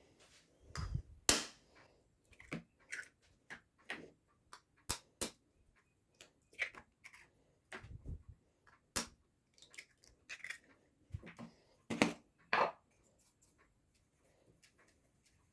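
Kitchen utensils and dishes being handled during food preparation: irregular clicks, taps and knocks, with a couple of duller thumps.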